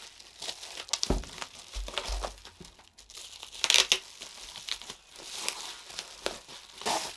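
Plastic bubble-wrap packaging crinkling and rustling in irregular bursts as it is pulled and peeled off a power supply unit, with a few dull low bumps about a second in.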